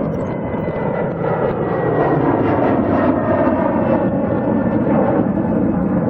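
Jet airliner's engines running loud as it passes close by, a steady rushing noise with a faint high whine slowly falling in pitch.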